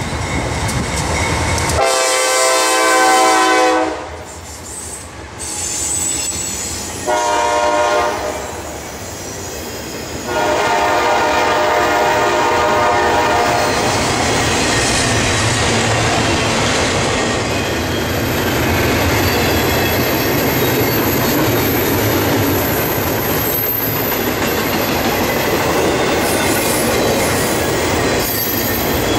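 CSX freight locomotive's air horn sounding three blasts, long, short and long, as the train approaches. It is followed by the steady rumble and clatter of double-stack intermodal container cars rolling past at track speed.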